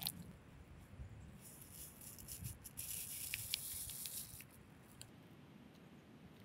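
Instant coffee powder trickling from a paper sachet into a carved wooden cup: a soft, dry hiss starting about a second and a half in and lasting about three seconds.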